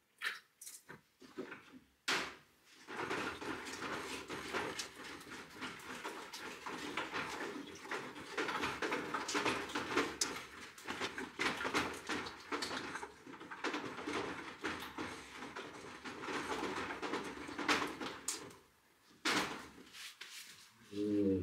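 Rustling and scraping of gloved hands working in a plastic bucket, a continuous scratchy noise with many small clicks that stops a couple of seconds before the end. A short rising whine sounds right at the end.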